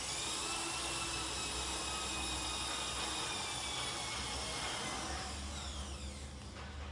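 A high-speed motor whirring with a hiss, switched on suddenly, running steadily, then winding down with falling pitch about five seconds in.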